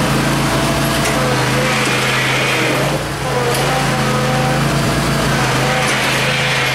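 Riding lawn tractor engine running steadily under load as the tractor pushes snow with its front blade, with a brief dip about three seconds in.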